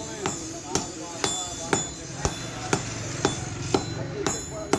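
Hammer blows on iron spring stock at the anvil during hand forging, in a steady rhythm of about two strikes a second, each with a short metallic ring.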